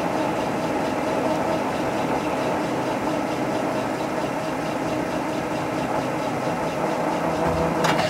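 Geared metal lathe running steadily with a 5C collet chuck spinning, the cutting tool turning a small aluminum part. The running stops abruptly at the very end.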